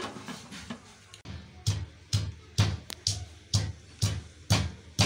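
Wooden pestle pounding green chillies in a wooden mortar: dull, regular thuds about twice a second, starting a little over a second in.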